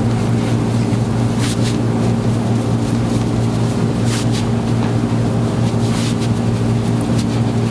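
Steady electrical hum at a constant pitch, with a few faint brief clicks.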